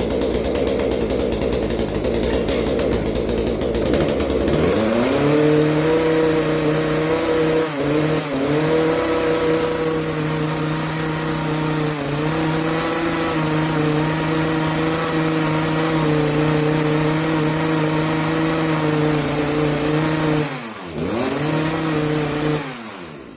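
Craftsman 40cc two-stroke chainsaw engine idling, then throttled up about four seconds in and held at a steady high speed with a couple of brief dips, dropping back twice near the end. It won't wind out to full revs; the owner says the high-speed carburettor jet needs opening up to give it more fuel.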